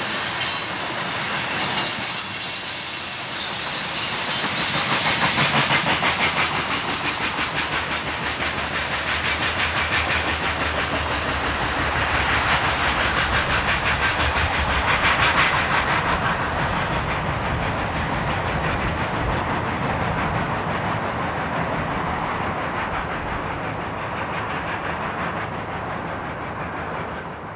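Loaded coal hopper cars of a freight train rolling on the rails, with a high squeal from the wheels in the first several seconds. The sound slowly fades as the end of the train goes away into a tunnel.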